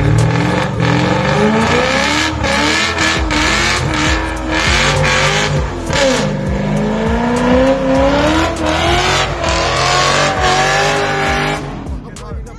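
HSV Senator Signature's 6.2-litre LS3 V8 revving hard through a burnout, its pitch climbing, dipping and climbing again over the hiss of spinning rear tyres. The sound drops away near the end.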